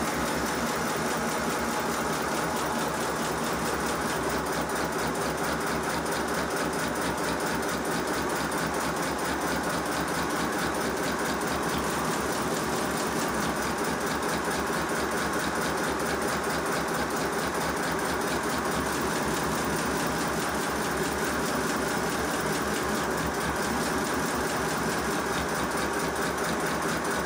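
5-inch gauge GWR pannier tank model locomotive running steadily on compressed air, its cylinders exhausting in a fast, even beat and its wheels spinning on the rollers of a rolling road. One end is lifted off the rollers, and the engine runs more freely and sounds better. The owner puts the drag with full weight on the wheels down to suspension that is too soft, leaving the engine sitting too low on its axles.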